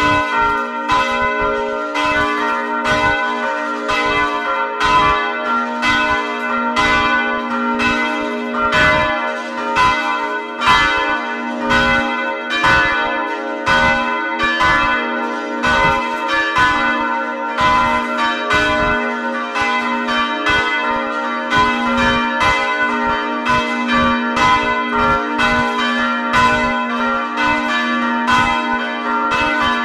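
Full peal of the church's swinging bells rung together, heard from inside the bell tower: clapper strokes come in an uneven, overlapping stream of about one to two a second over a continuous bed of ringing tones.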